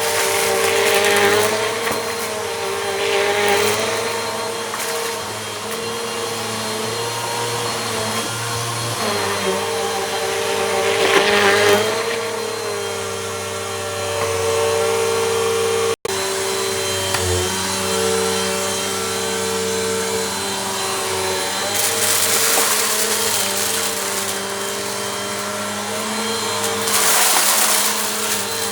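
Bissell Compact vacuum cleaner running steadily over a rug, its motor holding a steady hum. Several louder hissing surges come as passes pick up crunchy grit and dirt, and the sound cuts out for an instant about halfway through.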